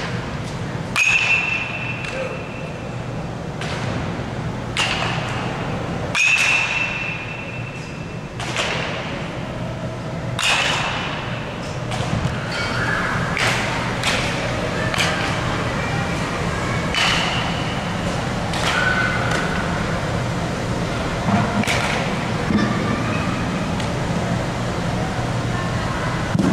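Baseball bat striking balls again and again, each hit a sharp crack a second or a few apart, several of them followed by a brief ringing tone, over a steady low hum, with echo in the big hall.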